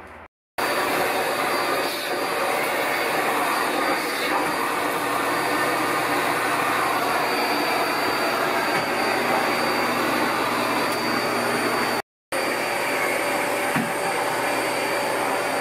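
Vacuum cleaner running steadily, a loud even whoosh with a faint high whine, broken by a brief gap about twelve seconds in.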